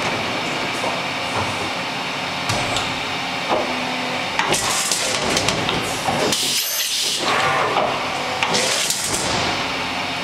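Niigata SPN-50 horizontal machining center's automatic tool changer swapping the tool in the spindle: clicks and knocks over steady machine noise, with two loud hissing bursts, about four and a half and eight and a half seconds in.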